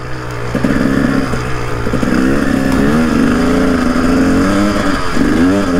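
KTM 300 TPI's single-cylinder two-stroke engine revving up and down as the enduro bike is ridden through snow with little grip, the revs climbing about two seconds in and again near the end.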